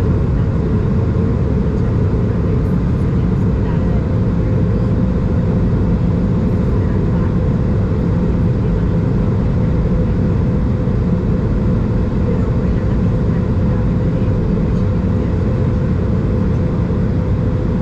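Steady cabin noise inside an Airbus A220 in flight: airflow rush and the hum of its Pratt & Whitney PW1500G geared turbofans, heard through the fuselage, with a faint steady tone.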